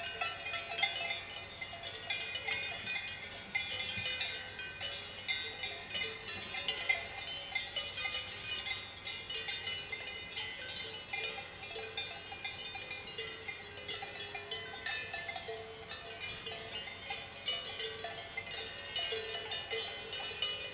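Swiss cowbells on a herd of grazing cows, many bells clanking at once in an irregular, overlapping jangle as the cows move their heads.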